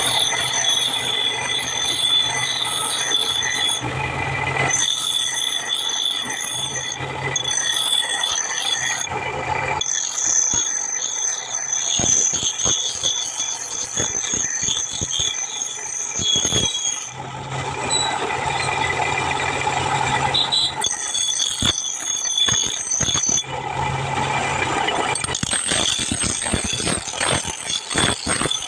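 Metal being ground on a power grinder: a steady, high-pitched squeal over a rasping hiss, in several long stretches that stop and start abruptly.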